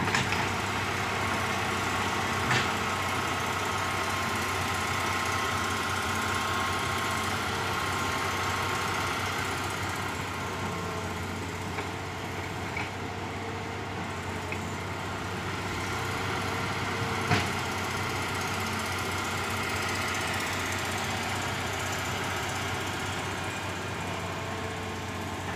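Hitachi excavator's diesel engine running steadily as the machine swings and dumps soil into a dump truck. Two sharp knocks cut through, one a few seconds in and a louder one about two-thirds of the way through.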